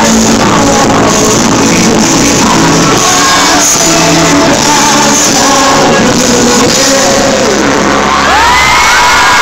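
Live pop music from a concert stage, with singing and shouting from the crowd in a large hall. Near the end a long sung note rises and then holds.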